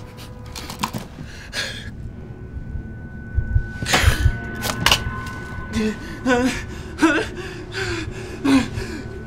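A person gasping and making strained vocal sounds, with a cluster of knocks and thuds about four seconds in.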